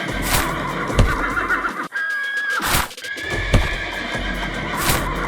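Horse whinnying, a high call that holds and then quavers, repeated twice, with sharp knocks in between.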